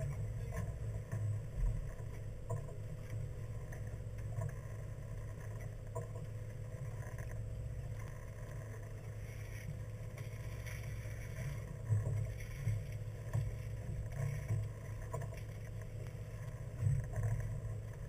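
Fishing boat's engine running with a steady low rumble and a faint steady hum above it, with an occasional bump or knock.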